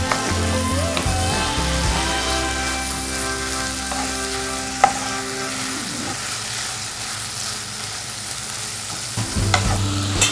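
Chopped kondapindi leaves with dried red chillies and moong dal sizzling in oil in a kadai while a wooden spatula stirs and turns them. There is one sharp knock about five seconds in.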